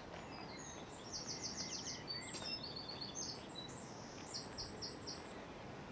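A small songbird singing a quick run of short, high notes in several groups, over a steady outdoor background hiss.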